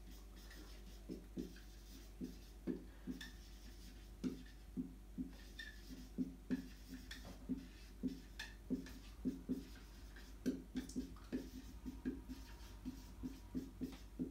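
Dry-erase marker writing on a whiteboard: a string of short, irregular strokes as a line of words is written out.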